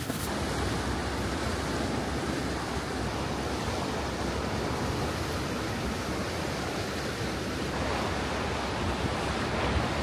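Steady rushing of wind and sea surf, an even noise with no separate events.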